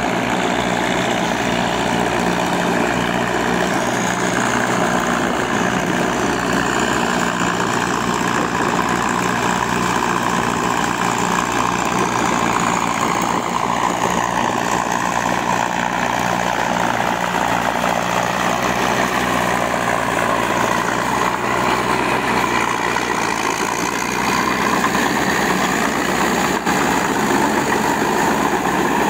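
Diesel farm tractor engine running steadily under load as it drives a rotary tiller through wet paddy mud, with a tone that slides lower around the middle.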